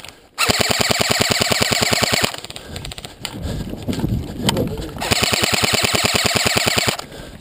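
Airsoft rifle firing on full auto in two bursts of about two seconds each, a fast, even rattle of shots, with scuffling movement between the bursts.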